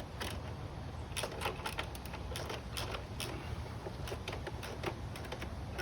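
Small metal clicks and ticks from a socket wrench as a bolt is run in on a motorcycle exhaust fitting, scattered irregularly over a steady low hum.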